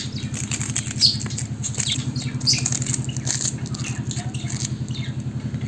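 An engine running steadily with a fast, even low throb, while birds chirp and squawk in short calls over it.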